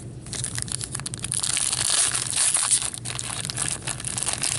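Plastic-foil wrapper of a hockey card pack crinkling and tearing as it is ripped open by cotton-gloved hands: a dense run of crackles beginning about a third of a second in and growing busier after about a second.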